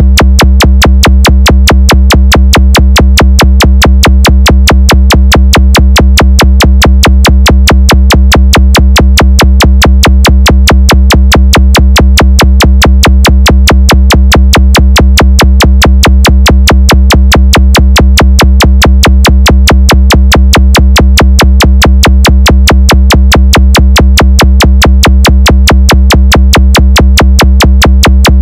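DJ sound-check 'vibration' bass track: a heavy, unbroken deep bass tone driven by a fast, perfectly even electronic drum-machine pulse, played very loud.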